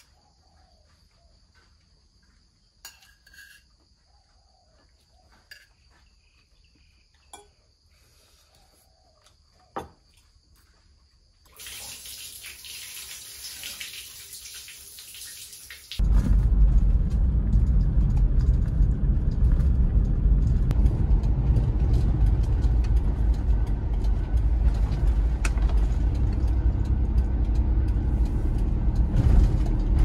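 A few light clinks of spoons on plates over quiet, then about four seconds of water pouring and splashing. After that comes a steady low rumble of road noise inside a moving car, the loudest part.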